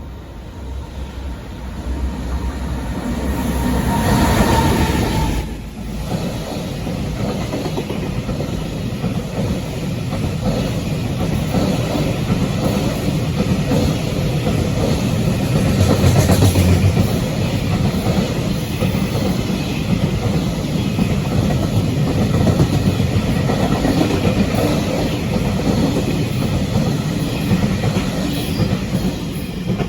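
JR Freight freight train passing at speed, its wagon wheels clattering over the rail joints in a long, steady rumble. It is loudest about four seconds in, eases briefly just after, then runs on unbroken.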